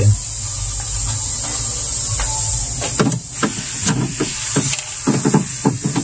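Screwdriver and hands knocking and clicking against the plastic evaporator cover inside a no-frost refrigerator's freezer. There are several short knocks from about halfway in, over a steady hiss.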